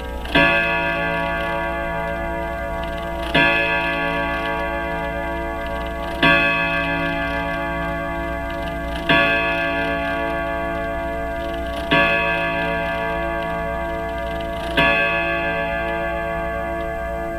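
Hermle 451-050H grandfather clock movement striking the hour on its gong: six slow, evenly spaced strokes about three seconds apart, each ringing on and fading until the next.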